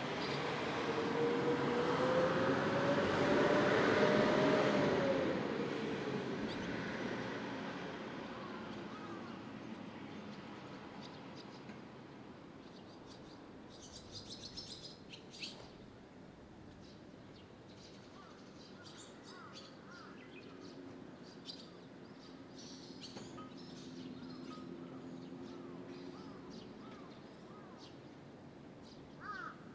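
A vehicle passing by, its engine tone rising and then falling as it swells to the loudest point about four seconds in and fades away by about seven seconds. After that, a quieter stretch with scattered high bird chirps around the middle.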